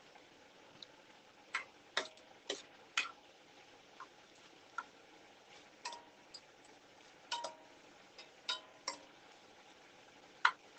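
Metal tongs clinking against an enamelled cast iron pan as chunks of chicken are turned: a dozen or so sharp, irregular clicks, a few with a brief metallic ring.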